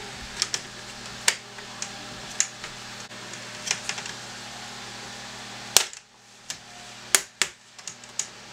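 Plastic clips of an Acer Aspire V Nitro laptop's screen bezel clicking into place as the bezel is pressed onto the display, a dozen or so sharp, irregular clicks with the loudest about six seconds in. One of the clips sounded bad and the rest sounded all right. A low background hum cuts off about six seconds in.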